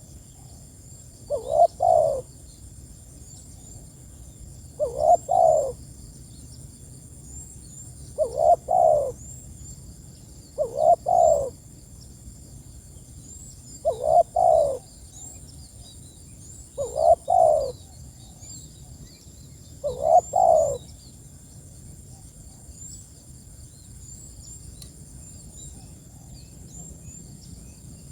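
Spotted dove cooing: seven short phrases of low coo notes, one about every three seconds, which stop about 21 seconds in. Faint high chirping runs underneath throughout.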